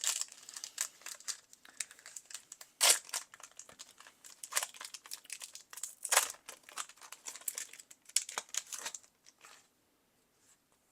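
Foil wrapper of a Magic: The Gathering collector booster pack being torn open and crinkled: a run of crackly rustles with several louder crackles, dying away about nine seconds in.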